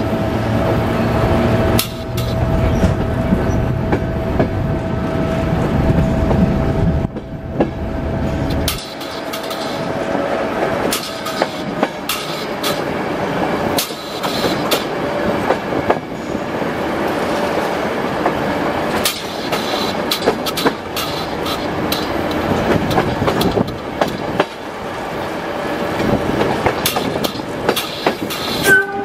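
Moving diesel-hauled train heard from an open coach window behind a BDZ Class 07 'Ludmilla' locomotive: wheels clicking and knocking over rail joints, with the locomotive's low engine drone strong at first and dropping away about nine seconds in.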